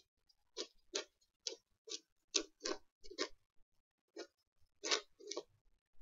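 A small toy tapped against a hardcover book's cover: about a dozen quick, sharp taps at an uneven pace.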